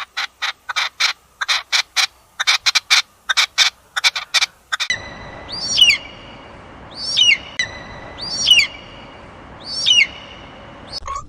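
Animal calls: first a rapid run of short, evenly repeated notes, then, after an abrupt change in background about five seconds in, four separate chirping calls spaced about a second and a half apart over a steady background hiss.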